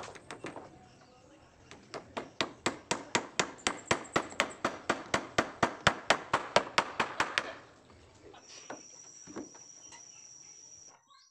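Hammer blows on the wooden timbers of a boat frame under construction, a fast even run of about five strikes a second lasting several seconds, then stopping.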